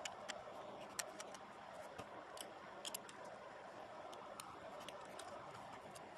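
Scattered light, irregular clicks and ticks of a tiny T3 Torx screwdriver and small metal and plastic phone parts being handled while screws are taken out of a BlackBerry Torch's frame.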